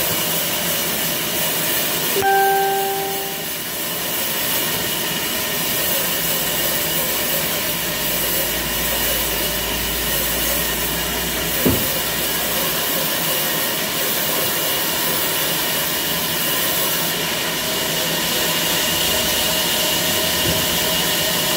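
Band sawmill running and cutting through a log: a steady hiss with a thin high whine. A short pitched tone sounds about two seconds in, and there is a single sharp knock near the middle.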